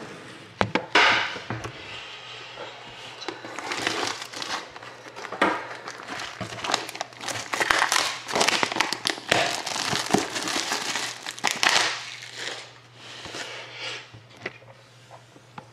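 Plastic shrink wrap being cut and pulled off a sealed trading-card box, crinkling on and off. It is busiest in the middle and dies down near the end, over a low steady hum.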